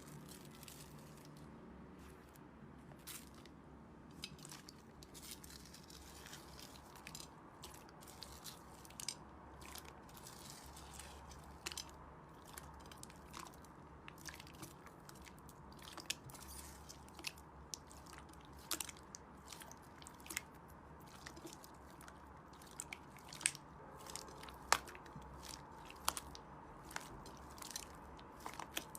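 Slime being squeezed and pressed by hand, giving off many irregular sharp crackles and pops that come thicker and louder in the second half.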